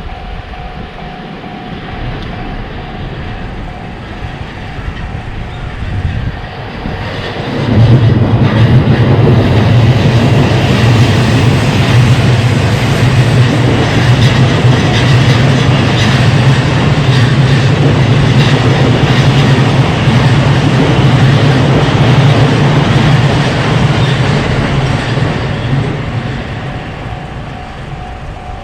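A train running past a Japanese level crossing. The crossing's warning bell rings as a steady tone, then about seven seconds in the train arrives loud with a deep rumble and passes for nearly twenty seconds before fading. The bell is heard again near the end.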